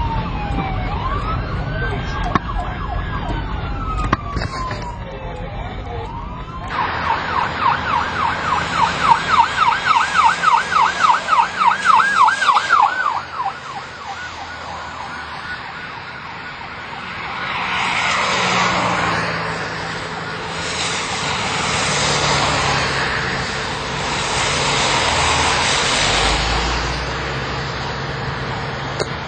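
Police car sirens: a wailing siren sliding up and down in pitch, then from about seven seconds in a loud fast yelp for about six seconds. After it, three swells of passing-vehicle noise.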